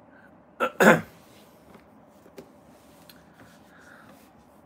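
A man clears his throat with two short coughs in quick succession, about half a second to a second in.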